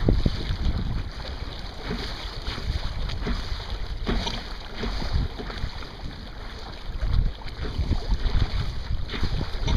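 Wind buffeting the microphone over the rush of water along the hull of a Sunfish sailboat heeled over under sail through chop, with louder slaps of spray at irregular moments, about 4, 7 and 9 seconds in.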